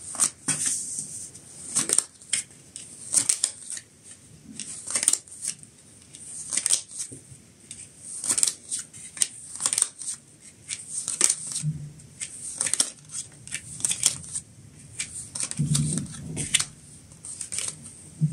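Tarot cards being dealt one after another onto a cloth-covered table: a steady run of short, crisp snaps and slides of card stock, about one or two a second.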